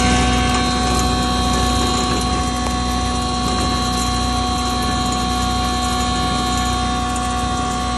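Double chamber grinder machine running steadily: a continuous mechanical hum and rush with several steady whining tones.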